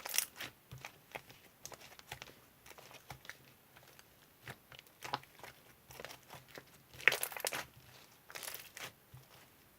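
Crinkling and crackling of something being handled, in irregular short bursts, loudest about seven seconds in.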